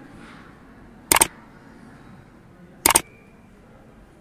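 Two camera-shutter clicks, each a quick double click, about a second and about three seconds in, over a faint steady background.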